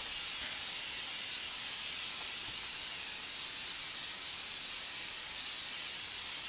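Febreze air freshener aerosol can spraying in one long, steady hiss.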